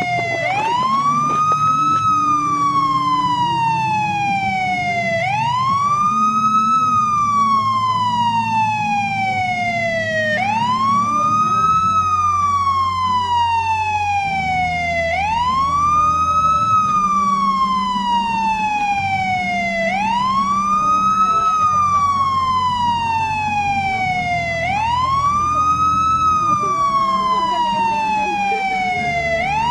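Police siren sounding a slow wail: each cycle climbs quickly in pitch, then falls slowly, repeating about every five seconds, six times through. A low hum runs underneath.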